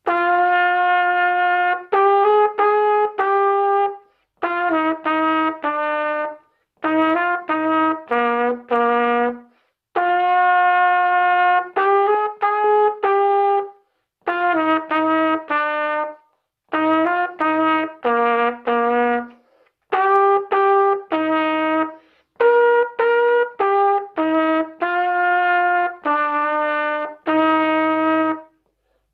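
Solo trumpet playing a melody in phrases of held and shorter notes, with brief breath pauses between phrases.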